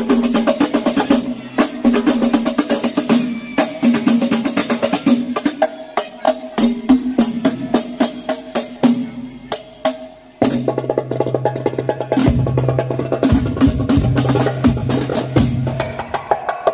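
Hadroh percussion ensemble: several terbang frame drums and a darbuka playing a fast, dense interlocking rhythm of rapid hand strokes. About ten seconds in the sound briefly drops, then the drumming continues with a steady low hum coming and going beneath it.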